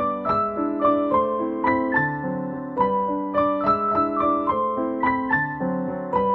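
Background piano music: single notes and chords struck at a steady, even pace.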